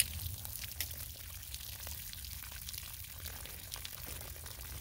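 Water draining from bullet-holed plastic gallon jugs, trickling and dripping onto dry dirt, with scattered drip ticks over a low wind rumble on the microphone.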